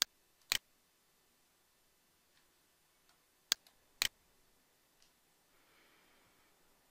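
Computer mouse clicking: four short, sharp clicks, a pair about half a second apart at the start and another pair about three and a half seconds in.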